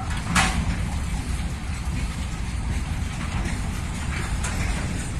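Freight train of railway tank cars rolling along the track: a steady low rumble of wheels on rails, with one short sharp clack about half a second in.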